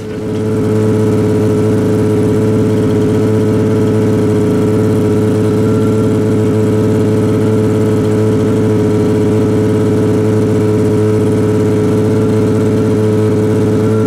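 An engine running loud and steady at constant high revs, with a strong even hum. It comes up within the first second and holds without rising or falling in pitch.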